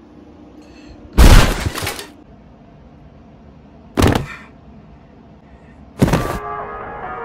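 Three heavy hit sound effects, about three seconds apart, the first about a second in and the loudest; a tune begins just after the third.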